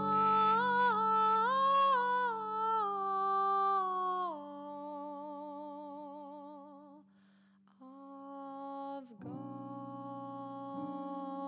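A woman humming a slow, wordless Taizé chant melody with vibrato, rising in steps and then falling, over a steady low drone. After a brief break about seven seconds in, held steady tones continue.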